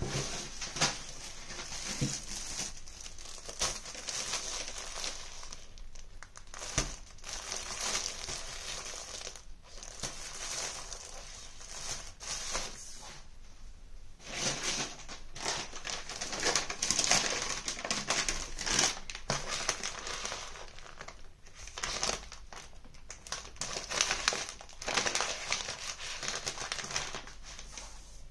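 Plastic and paper bakery packaging crinkling and rustling in bursts, with short pauses between, as items are lifted out of a shopping bag and set down on a table.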